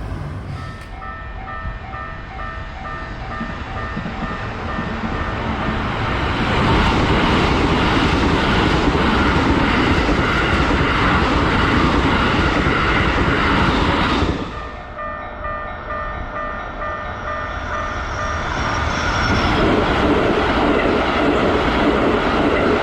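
Japanese level crossing warning bell clanging in a rapid repeated 'kan-kan', then drowned out by a Keikyu electric train rushing through the crossing at high speed with loud wheel and rail noise. After an abrupt cut about two-thirds through, the bell rings again and another train comes through.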